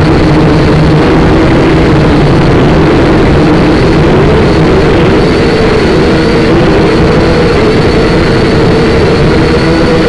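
SYMA toy quadcopter's small electric motors and propellers, heard close up through its own onboard camera: a loud, steady buzzing whine whose pitch wavers up and down as the motors change speed.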